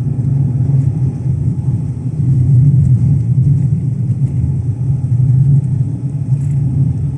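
Steady low rumble of a Lada Granta driving on a snowy highway, heard from inside the cabin: engine and studded-tyre road noise.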